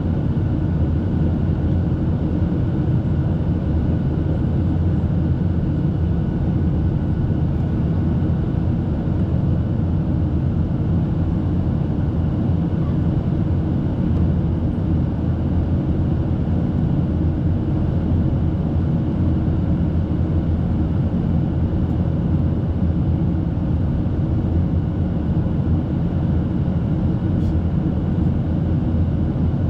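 Boeing 737-800's CFM56-7B turbofan engines and airflow heard inside the passenger cabin in flight: a loud, steady deep drone with a faint steady whine over it.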